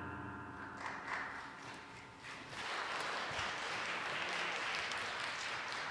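The last chord of a school symphony orchestra rings away, then audience applause starts about two and a half seconds in and continues steadily.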